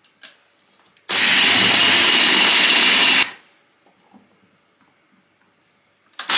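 Food processor motor running for about two seconds, chopping frozen cubes of lard and butter into flour, then starting up again near the end.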